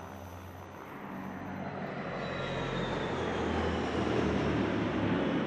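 Airplane engines running, the noise growing louder over the first few seconds, with a faint falling whine.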